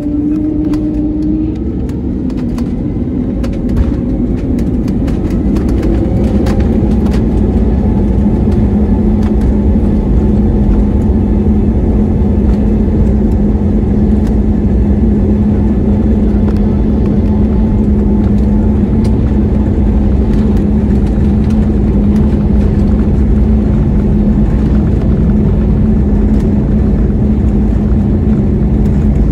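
Airliner engines heard from inside the cabin: a loud, steady roar with a low hum that builds over the first few seconds and then holds, as on a takeoff run. Scattered rattles and knocks sound during the first several seconds.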